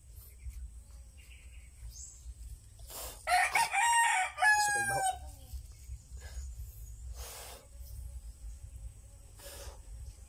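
A rooster crows once about three seconds in, one long call that falls in pitch at its end. Later come a few short scraping strokes of an abrasive rubbed on a PVC pipe fitting.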